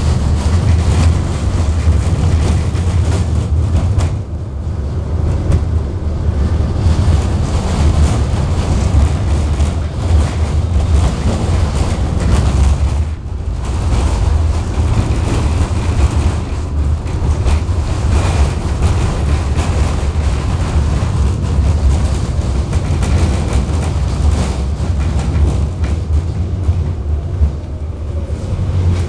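Running noise of a KTM-19 tram heard from inside the passenger car as it travels between stops: a steady low rumble from the wheels and running gear on the rails, easing briefly about four and thirteen seconds in.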